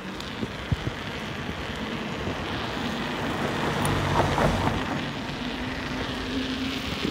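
Knobbly Michelin Wild Rock R2 enduro mountain bike tyres rolling on tarmac, a steady road noise from the tread. The tyres are brand new, which gives them a little more friction and noise.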